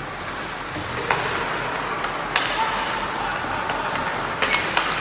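Rink sound of an ice hockey game: sharp clacks of sticks and puck, one about a second in, another a little later and a quick cluster of three near the end, over a steady background of distant voices from players and spectators.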